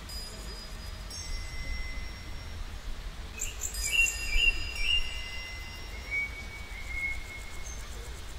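Chime tones ringing: single notes struck one after another and left to ring, with a brighter cluster of notes about halfway through, over a low steady rumble.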